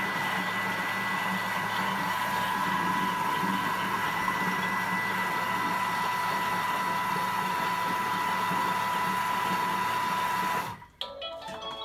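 Thermomix food processor blending the soup ingredients at high speed: a steady whir with a high whine that cuts off sharply near the end. A short electronic tone sequence from the machine follows, signalling the timed run is finished.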